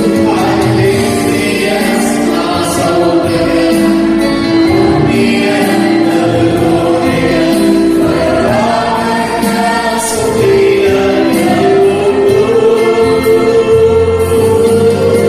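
A choir singing an Arabic Christian hymn with instrumental accompaniment.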